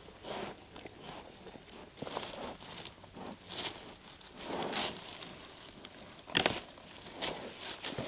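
Black bear foraging in the forest-floor litter: irregular rustling and crackling of dry leaves, needles and twigs as it noses through the ground and shifts its paws, with one sharp crack about six and a half seconds in.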